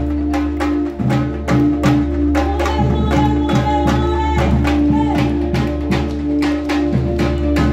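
Live Brazilian batucada: a group of large surdo-type drums and other drums beating a steady rhythm, with a sustained melody line over the drumming.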